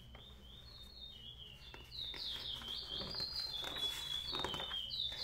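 A songbird singing a run of quick, high, repeated chirping notes, louder from about two seconds in, with the rustle of a glossy magazine page being turned near the end.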